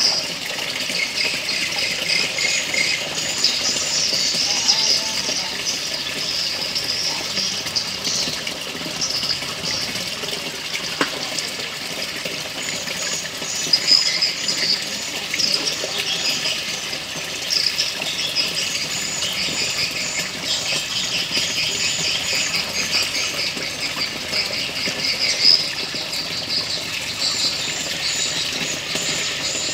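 Continuous high-pitched chirping, with many short calls overlapping, and an occasional louder tap.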